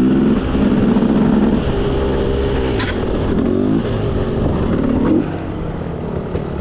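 KTM supermoto's single-cylinder engine revving under way, its pitch rising and falling several times as the throttle is worked. It drops to a quieter run about five seconds in.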